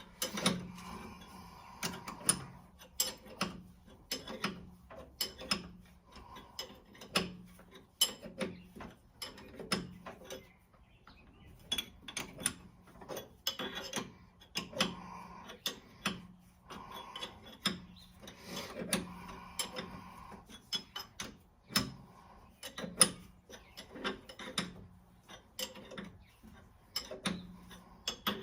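Hand tools and metal engine parts clicking and clanking in an irregular run of sharp knocks while the harmonic balancer is removed from a Ford 302 V8. A faint steady hum runs underneath.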